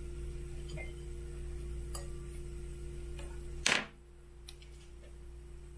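A metal fork clinks lightly against a cut-glass bowl a few times while stirring crumb topping, then lands with one sharp clack on the countertop about three and a half seconds in. A steady low hum runs underneath.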